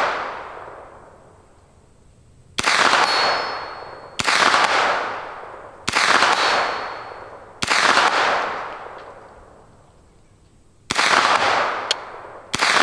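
SIG MPX 9mm pistol-caliber carbine fired six single shots, one to three seconds apart, each trailing off in a long echo. A steel target rings faintly after the first couple of hits.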